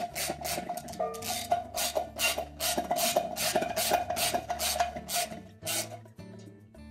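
Socket ratchet rasping in quick, even strokes, about three a second, as it runs a bolt down into a washing machine's new tub bearing and seal assembly; the strokes stop about six seconds in. Soft background music underneath.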